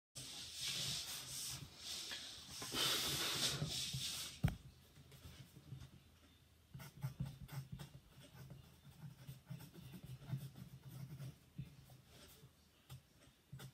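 Pen scratching on paper during writing, louder in the first few seconds and then faint, with one sharp tap about four and a half seconds in.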